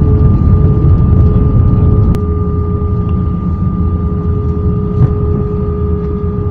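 Cabin noise of an Airbus A319 on its landing rollout with spoilers up: a loud low rumble from the wheels and engines under a steady whine. A single click sounds about two seconds in, and the rumble eases a little as the jet slows.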